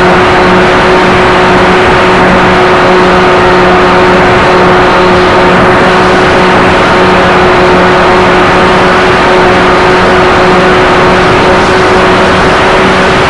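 Motors of a radio-controlled model Partenavia heard from the onboard camera in flight: a loud, steady whine with a constant pitch over rushing noise, and a lower hum that comes and goes.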